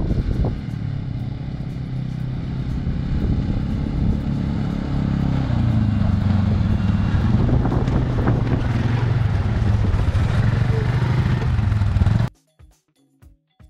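Quad bike engines running as the ATVs ride along a sandy track, growing louder as one comes up close to the microphone about halfway through. The engine sound cuts off abruptly near the end, leaving soft, sparse plucked music.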